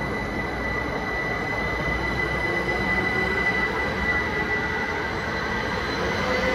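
A GWR passenger train running along the track and moving away, with a steady rumble and a high, steady whine over it.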